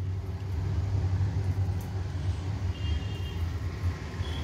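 A steady low rumble, with a faint short high tone about three seconds in.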